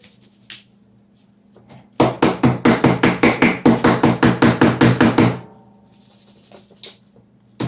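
Dust filter of a Roborock S5 Max robot vacuum being cleaned with its small cleaning brush: a rapid run of sharp strokes, about seven a second, starting about two seconds in and lasting about three seconds, with a few more near the end.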